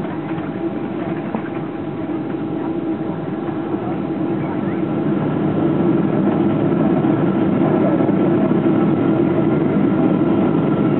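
Cabin roar of a Boeing 777-200LR rolling down the runway just after touchdown, spoilers up and slowing. The engine noise swells about five seconds in and then holds loud, as the GE90 engines spool up for reverse thrust.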